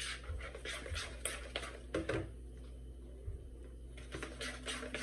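A utensil clicking and scraping against a mixing bowl as waffle batter is stirred. The taps come quickly and irregularly, about three a second, with a pause in the middle.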